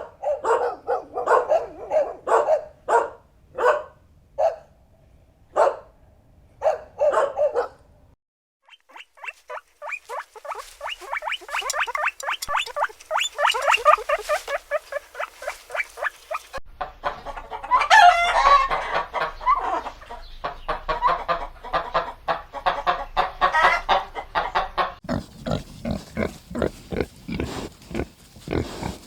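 Farmyard animal calls: several separate calls about once a second at first, then chickens clucking in a rapid, busy chatter, and pigs grunting in the last few seconds.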